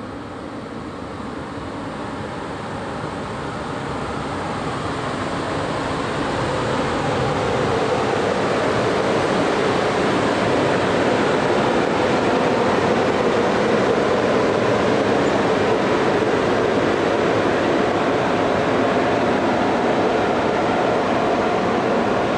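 PKP EP09 electric locomotive running light along the platform track: its running noise, a steady rushing hum, grows louder over the first eight seconds as it draws close, then holds steady right alongside.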